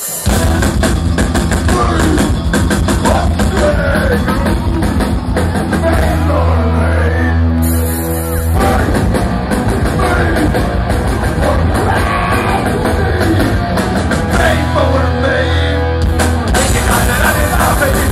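Thrash metal band playing loud and live, heard from within the crowd: electric guitars, drums and shouted vocals.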